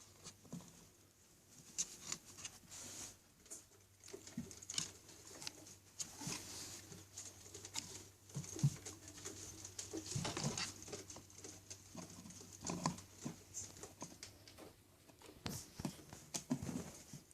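Small pets scrambling about on a kitty condo: irregular scratching, scuffling and light knocks of claws and bodies, with a busier flurry about ten seconds in.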